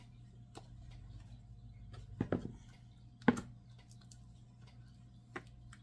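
A fork spreading thick yogurt marinade over chicken pieces in a plastic tub: soft wet scraping with a few clicks and knocks against the container, the sharpest about three seconds in, over a faint steady hum.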